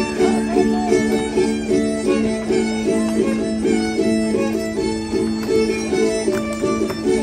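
Violin playing a repeating dance tune over a steady held drone note, the traditional music accompanying the danza de los rubios.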